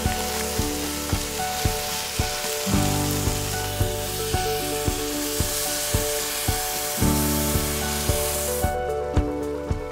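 Lobster pieces and tomatoes sizzling in a hot pot; the hiss cuts off suddenly near the end. Background music with a steady beat runs underneath.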